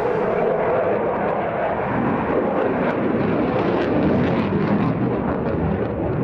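RAF Eurofighter Typhoon's twin Eurojet EJ200 turbofans roaring at high power with afterburner lit as the jet passes overhead. The steady jet roar takes on a harsh crackle from about two seconds in.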